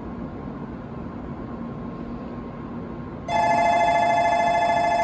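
Steady low hum of the waiting N700A shinkansen, then a little over three seconds in the platform's electronic departure bell starts ringing, loud and continuous.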